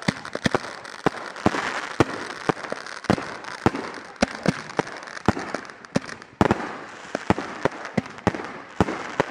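Consumer aerial firework cake firing a rapid volley of shells: sharp pops and bangs about three a second, with a crackling hiss between them.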